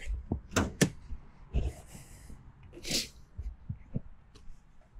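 Sharp clicks and a dull knock as the hood release lever of a 2006 Toyota Land Cruiser 100 Series is pulled and the hood pops off its latch. A short hissing rush about three seconds in, then faint taps.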